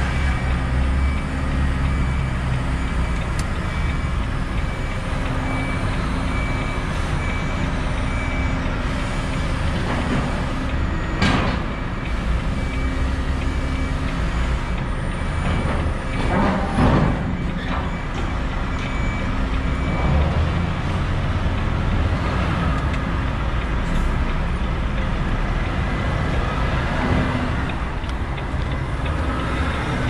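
Heavy truck idling with a steady low rumble, heard from inside the cab. A reversing alarm on yard machinery beeps at an even pace until about two-thirds of the way in. There is a sharp knock about a third of the way in and a louder clatter a little past halfway, typical of container-handling work around the truck.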